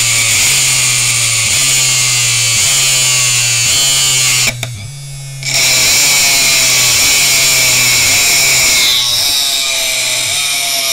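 A 600 W washing-machine motor running at full speed with a screwdriver pressed against its spinning shaft as a brake. There is a steady hum with a hissing scrape over it, and a pulse about once a second as the relay switches the motor on for 0.1 s in every 1.1 s. The hiss and level drop out for about a second near the middle.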